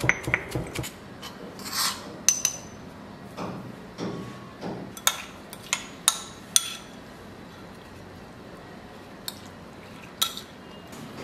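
Scattered clinks and knocks of kitchenware: a spoon and glass bowl against a stone mortar, some with a short glassy ring. Near the end, fenugreek seeds are poured from the glass bowl into the stone mortar.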